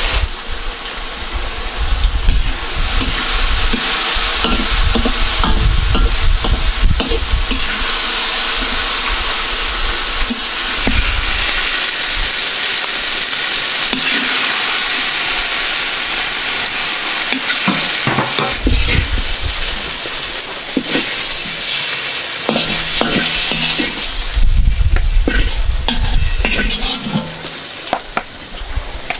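Vegetables sizzling in hot oil in a metal wok while a metal spatula stirs and scrapes them around, with scrapes and clinks of the spatula against the pan. The sizzle thins near the end.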